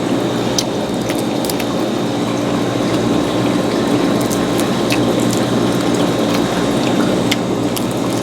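Close-up eating sounds: chewing with scattered sharp clicks and crackles from food and shells, over a steady low hum.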